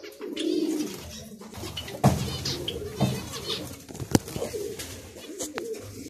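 Aviary birds calling: low cooing mixed with higher chirps and calls, as from the zebra finches kept there. A few sharp taps stand out, the sharpest about four seconds in.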